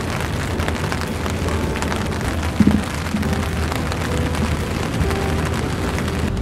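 Steady crackling rush of wind buffeting the microphone over a low rumble, with one short low bump about two and a half seconds in.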